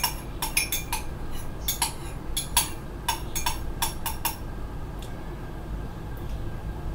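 Metal spoon stirring in a ceramic mug, clinking against its sides in a quick, uneven run of about three clinks a second that stops about four seconds in.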